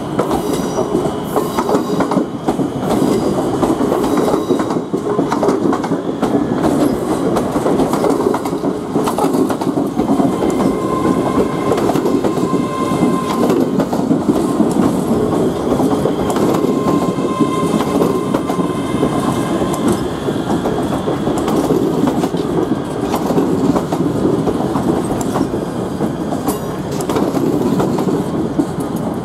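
ScotRail class 385 electric multiple unit running past along the platform: steady running noise from wheels and underframe, with frequent sharp clicks as the wheels pass over rail joints and pointwork.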